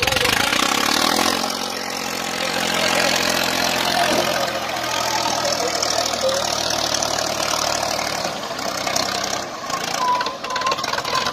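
Diesel engines of two Swaraj tractors running hard under load as they pull against each other through a chain in a tug-of-war.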